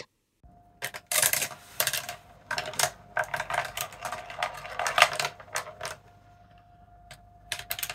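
Robotime ROKR Marble Parkour wooden marble run in motion: steel marbles clattering and clicking along the laser-cut wooden tracks and lift as the front crank turns the gears. A dense rattle of clicks for about five seconds, thinning to a few scattered clicks near the end.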